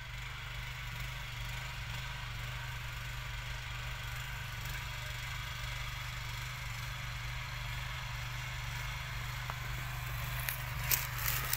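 Small engine of a walk-behind mini tractor (power tiller) running steadily while it tills. A few sharp rattles come in near the end.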